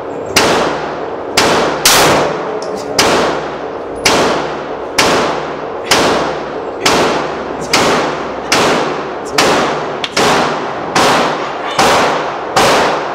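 Pistol shots fired in a steady string, about fifteen shots at roughly one a second, each a sharp crack with a reverberant tail in the indoor range that decays into the next shot.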